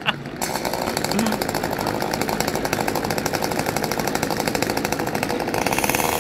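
Petrol chainsaw with a small two-stroke engine running steadily at idle, a fast even firing; it gets a little louder and fuller near the end.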